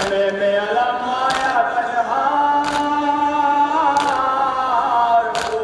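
Male voices chanting a nauha, a Shia mourning lament, in drawn-out sung lines. Four sharp slaps of chest-beating matam come in unison about every second and a half.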